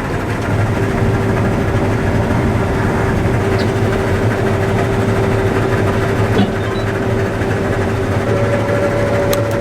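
Claas combine harvester running steadily, a constant engine drone with a steady whine that comes in about a second in and a second, higher whine that joins near the end.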